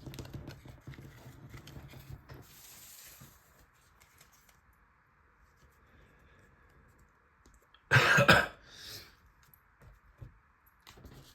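A man coughs once sharply about eight seconds in, with a smaller cough or throat-clear just after. Quiet rustling and clicks of cards being handled come before it.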